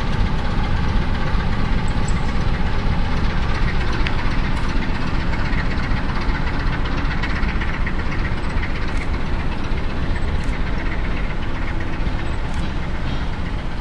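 Diesel engine of an ST43 (Romanian 060DA) diesel locomotive running steadily as the locomotive moves away along the track, growing slightly fainter over the last few seconds.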